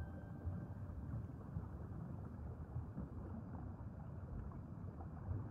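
Underwater ambience: a low, steady rumbling wash with faint scattered crackles.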